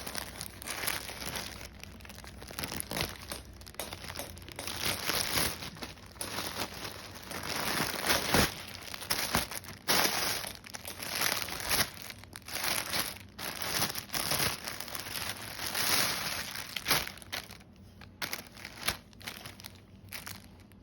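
Parcel packaging crinkling and rustling in irregular bursts as a saree is unpacked, loudest about eight to ten seconds in and again around sixteen seconds, then dying down near the end.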